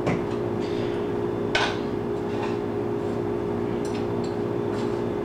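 Steady hum of a running kitchen appliance or air conditioner, with a few light clicks of a spice jar and a fork being handled on the counter.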